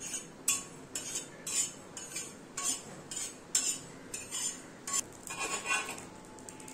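Spatula scraping across a tawa in quick strokes, about two a second, stirring cumin seeds as they dry-roast.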